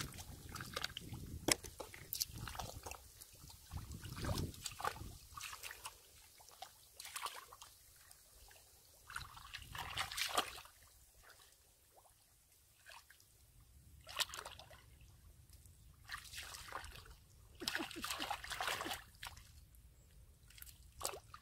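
Muddy water sloshing and splashing in irregular bursts as legs and hands move through a shallow mud pool, with wet squelching of mud.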